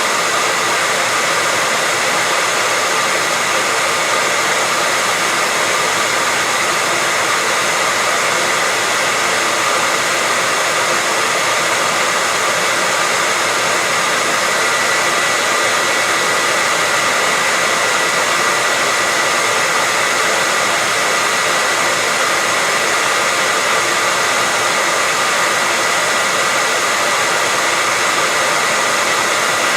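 Hair dryer running steadily: an unchanging rushing hiss of blown air with a thin steady whine running through it.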